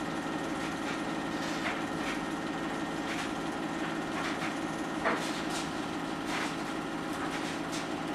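Film projector running: a steady mechanical whirr with a rapid, even clatter of the film transport and scattered clicks.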